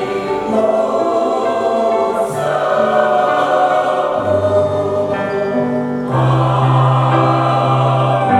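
Church choir singing a hymn in sustained chords, with a louder chord held from about six seconds in.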